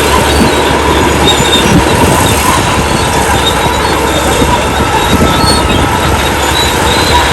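Old bulldozer working: its diesel engine running steadily under the dense metallic clatter of its steel crawler tracks.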